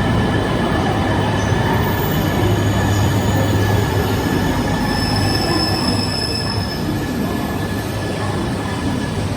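Train running at low speed, a steady rumble with a low hum and faint high tones, and a brief high thin wheel squeal about halfway through.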